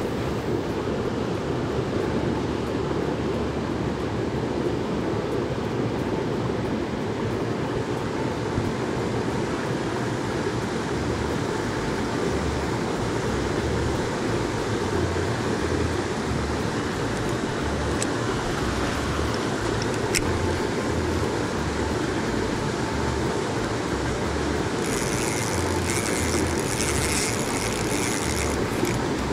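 A small mountain torrent rushing steadily.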